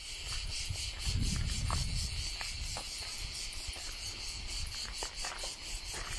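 A steady, shrill chorus of insects with a fine pulsing texture. Underneath is a low rumble that is strongest about a second in, and a few faint ticks.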